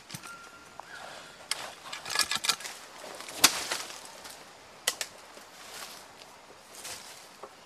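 A digging tool striking and breaking up sandy soil: a handful of sharp, irregular strikes, the loudest about three and a half seconds in.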